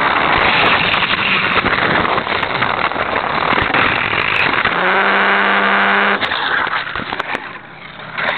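Hot Wheels Sizzlers toy car's small electric motor and wheels running loudly along plastic track with a dense rattle. About five seconds in, after the car is picked up, the motor gives a steady hum for about a second, then stops, leaving quieter handling noise.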